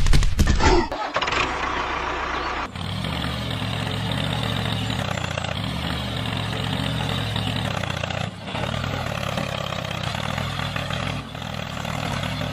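A tractor engine starting up and then running steadily.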